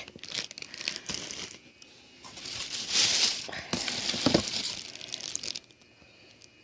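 Packaging crinkling and rustling in irregular bursts as toys are handled and pulled out of a package, stopping near the end.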